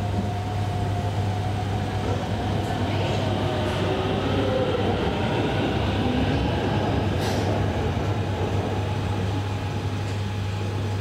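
Hanoi Metro Line 2A train running at an elevated station: a steady rumble, with a faint whine that rises and falls in pitch through the middle.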